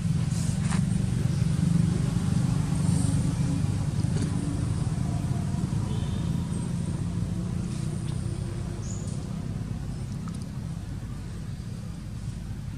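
A motor vehicle's engine running nearby: a steady low rumble, loudest in the first few seconds and slowly fading away.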